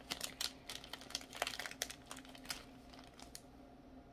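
Plastic packaging being handled with a string of light crinkles and small clicks, dying down about three and a half seconds in.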